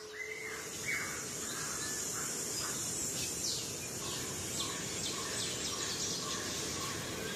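Daytime forest ambience: several birds calling in short chirps and falling whistles over a steady high-pitched insect drone.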